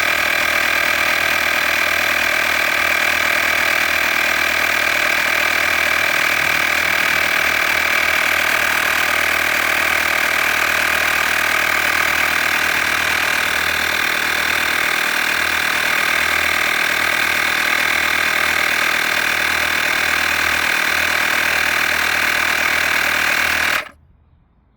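Handheld cordless tire inflator running steadily as it pumps up a flat car tire, then cutting off abruptly about a second before the end: its automatic shut-off stopping it on reaching the preset 35 PSI.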